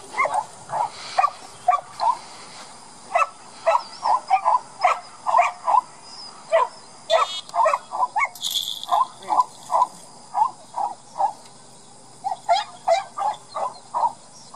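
Dog yipping and whining in quick short cries, several a second, with a couple of brief pauses.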